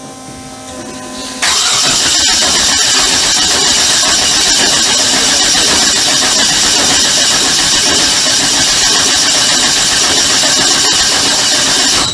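Starter cranking a freshly swapped 5.3 V8 for about ten seconds without it catching, then stopping suddenly; the engine won't fire because the crank sensor is unplugged.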